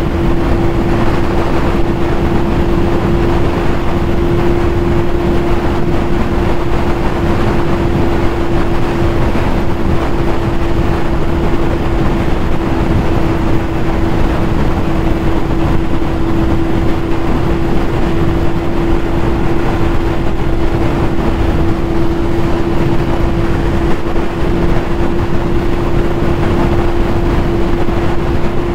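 2020 Yamaha YZF-R6 sport bike running at a steady speed, its inline-four holding one even pitch without revving, under a loud steady rush of wind on the helmet-mounted microphone.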